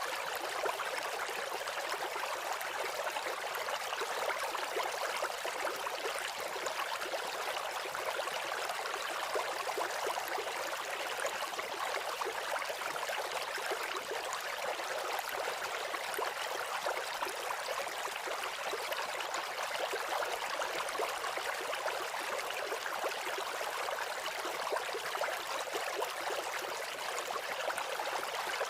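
Running water with a steady trickling, bubbling rush.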